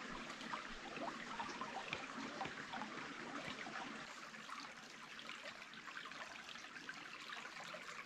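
Shallow creek trickling over rocks, heard close to the water: a faint, steady babble of many small splashes.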